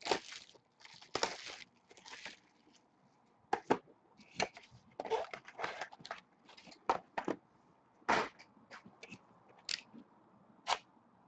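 Trading-card packaging and cards being handled: irregular short crinkles, crackles and scrapes, with quiet gaps between them.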